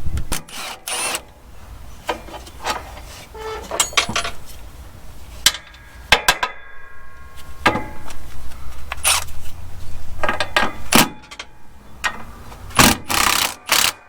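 Irregular clanks, knocks and clicks of hand tools and metal truck parts being handled, some briefly ringing, over a steady low hum.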